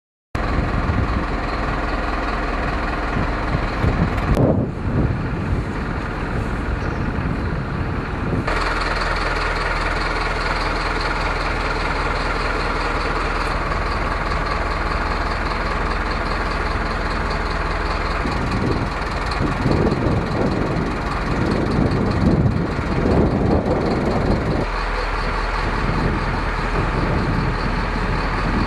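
Steady mechanical drone of an engine or machinery running, cutting in abruptly at the start and changing in tone about eight seconds in, with uneven low rumbling swells near the end.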